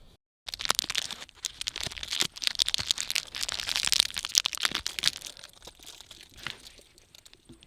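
Dense crinkling and crackling of crinkly material being handled close to the microphone, starting about half a second in and thinning out near the end.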